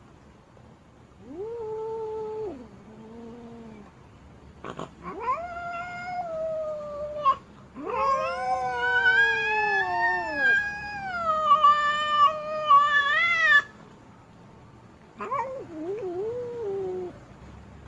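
Female cat yowling in a series of drawn-out, wavering wails that glide up and down in pitch, the longest lasting about six seconds.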